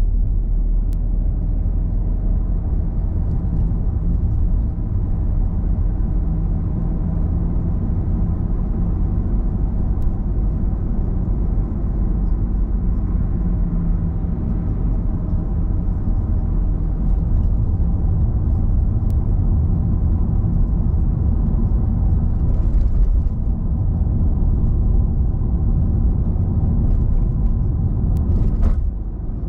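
Car being driven on city roads: a steady low rumble of engine and tyre noise, dipping briefly near the end.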